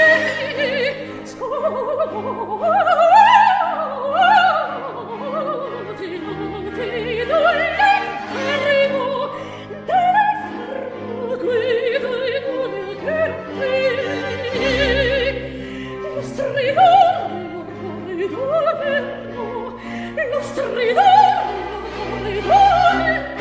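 Soprano singing a baroque opera aria with vibrato and quick rising and falling runs, over orchestral accompaniment.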